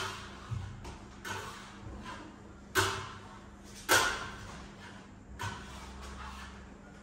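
Steel hand trowels scraping and smoothing decorative plaster across a wall panel: a series of short, irregular scrapes that fade quickly, the loudest two about three and four seconds in.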